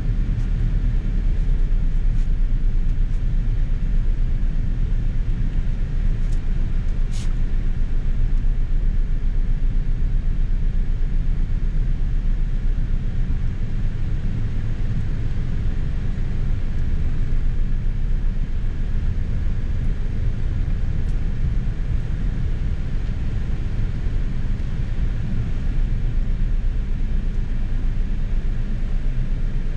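Toyota Yaris heard from inside the cabin at low speed: a steady, low engine and tyre rumble. A single short click about seven seconds in.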